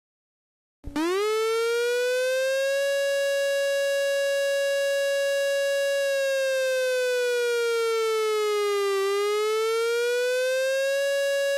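Emergency alert siren tone that sweeps up quickly about a second in, holds one steady pitch, slides slowly down and climbs back up, then cuts off suddenly near the end.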